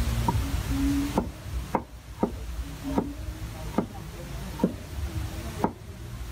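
Meat cleaver chopping shallots on a round wooden chopping board: about eight sharp, separate chops, spaced unevenly at roughly one a second.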